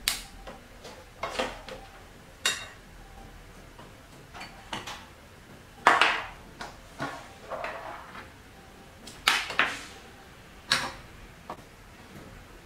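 Metal microscope ring lights and their mounting rings being picked up, set down on the desk and fitted under a trinocular microscope's objective: a scattered series of short clinks and knocks, the loudest about six seconds in and again about nine and a half seconds in.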